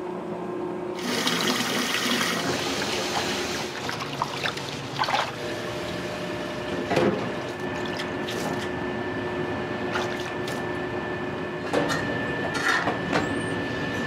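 Water running and splashing, loudest for a few seconds about a second in, with scattered knocks and clatter and a faint steady hum.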